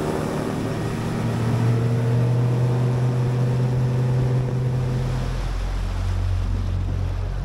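Outboard motor of a bass boat running on the water, with wind and water rushing past; the engine note drops about five seconds in.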